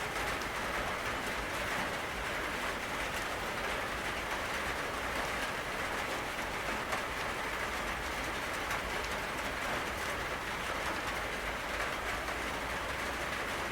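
Steady rainfall: an even hiss with fine ticks of individual drops.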